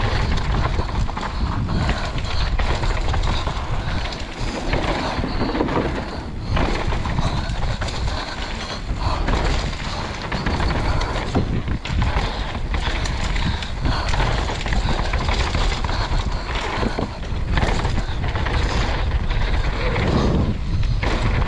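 Mountain bike riding fast down a dirt trail: tyres rolling over dirt and the bike's chain and parts rattling on the bumps, with wind rumbling over the microphone.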